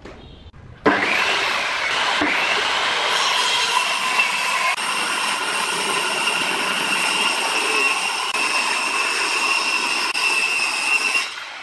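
Makita corded circular saw cutting through a sheet of plywood. It comes in abruptly about a second in with a briefly rising whine, then runs steadily through the cut and drops away near the end.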